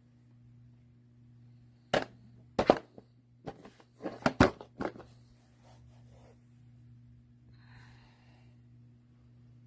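A cluster of sharp clicks and knocks, five or six of them about two to five seconds in, from the parts of an indoor dryer vent box being handled. A steady low hum runs underneath.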